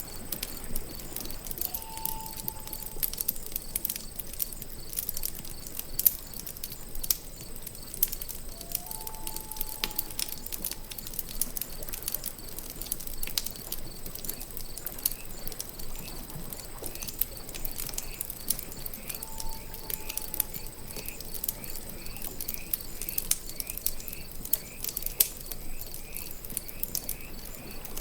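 Night lakeside ambience: a campfire crackling and popping throughout over a steady high insect trill of crickets. Three short whistled calls sound a few seconds apart, and from about halfway through a quick repeated chirping runs on.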